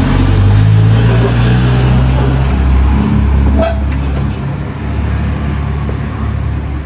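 Street traffic noise: a motor vehicle's engine running with a loud, steady low drone that changes pitch about three seconds in.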